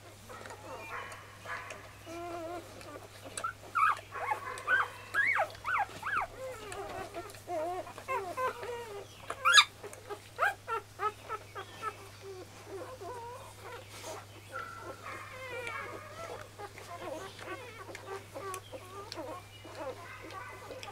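Five-day-old Golden Retriever puppies squeaking and whimpering while nursing: many short squeaks that slide up and down in pitch. There is one sharp click about halfway through.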